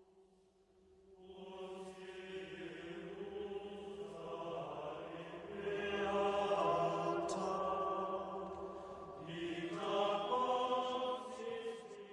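Choral chant music: voices holding long notes. It starts faint, swells in about a second in, and grows louder around the middle and again near the end.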